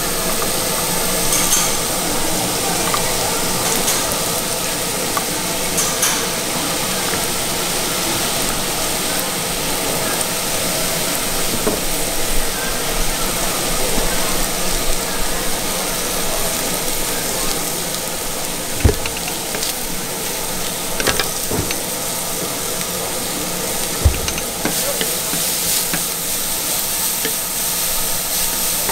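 Beef brisket and udon noodles sizzling as they are stir-fried on a hot griddle, a steady frying hiss throughout. Two sharp knocks stand out, one about two-thirds of the way through and another a few seconds later.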